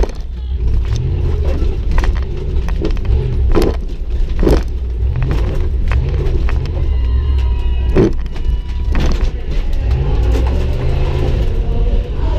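1999 Dodge Durango's engine heard from inside the cabin, revving up and falling back again and again as it is driven hard over a dirt tuff-truck course. Loud knocks and clunks come repeatedly as the truck jolts over bumps, with loose items rattling in the cab.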